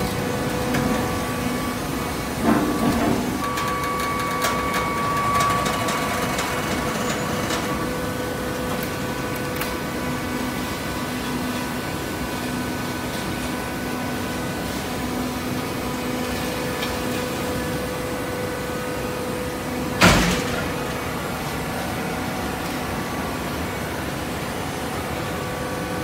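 Horizontal hydraulic baler running: a steady machine hum with several held tones, a brief knock about two and a half seconds in and a single sharp clank about twenty seconds in.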